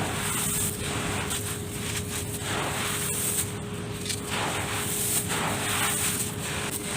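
Dirt being crumbled and mixed by hand: a gritty, crackling rustle that swells and eases every second or so, over a faint steady hum.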